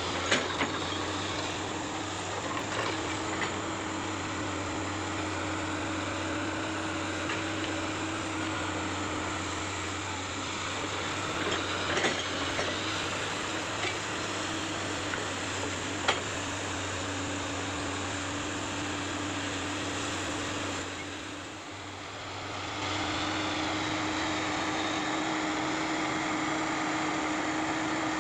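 Excavator diesel engine running steadily under hydraulic load, with a few sharp clanks. It dips briefly about three-quarters of the way through, then picks up again.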